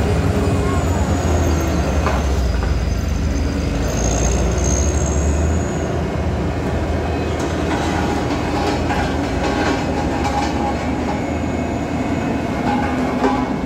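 Heavy truck's diesel engine running, with a deep rumble that eases about six seconds in. A thin high squeal comes in around four to five seconds in.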